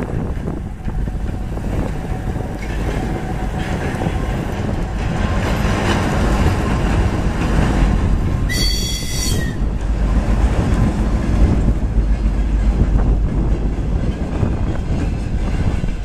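3TE10M three-section diesel locomotive passing with a freight train, its 10D100 two-stroke diesel engines running under load: a heavy, loud low rumble that grows louder as the sections go by, followed by the rolling of the freight wagons. A brief high-pitched tone lasting about a second sounds about eight and a half seconds in.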